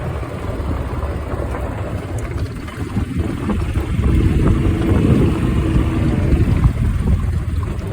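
Golf cart running as it drives along, a rough low rumble that grows louder about four seconds in, with a steady hum for a few seconds.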